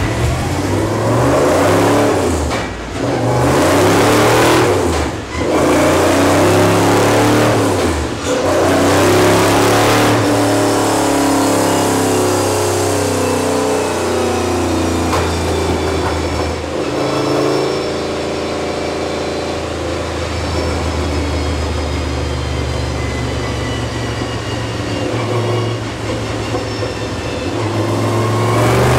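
Super 6000 stock car's V8 engine revving on a chassis dyno: several bursts of throttle each cut off sharply in the first eight seconds, then a long pull with climbing pitch from about ten seconds in that drops away after about seven seconds. It then runs steadier and a little quieter before swelling again near the end.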